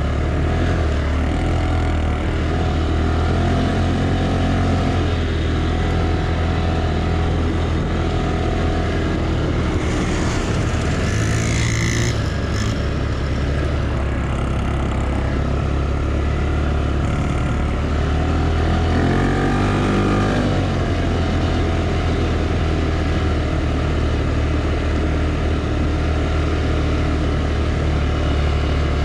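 A 200cc ATV engine running steadily as the quad rides along, heard from the handlebar-mounted camera. Its note changes briefly about twenty seconds in.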